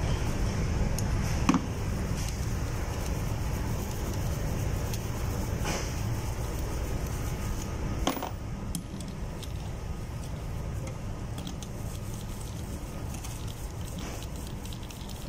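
Steel tool parts clinking a few times as the atomizer removal tool is fitted and screwed onto a marine main-engine fuel valve, over a steady low machinery drone.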